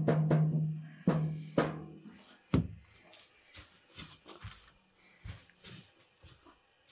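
A wooden stick knocking on a metal saj griddle three times in the first few seconds, each knock followed by a low ringing tone. Then softer tapping and rustling as flatbread dough is handled on a cloth.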